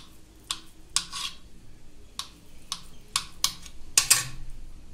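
A kitchen knife cutting down through a slab of fresh homemade paneer, its blade knocking on the board beneath. It makes about ten short, sharp taps, and the loudest come near the end.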